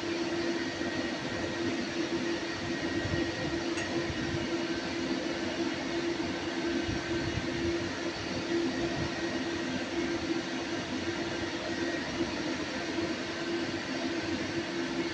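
Steady machinery drone with a constant low hum, unchanging throughout, and one faint click about four seconds in.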